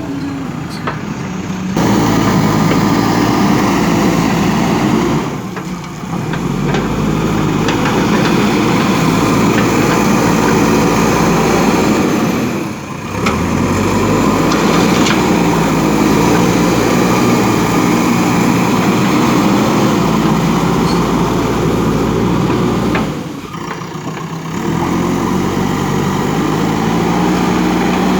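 Diesel engine of a JCB 3DX backhoe loader running steadily at working revs. The sound dips briefly three times, and the engine note shifts slightly after each dip.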